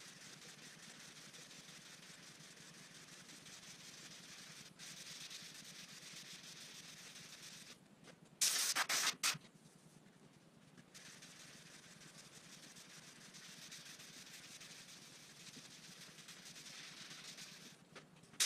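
Sanding block rubbing over body filler on a car bumper cover: steady scratchy rasping of hand sanding. About eight seconds in, a brief much louder hiss lasts about a second.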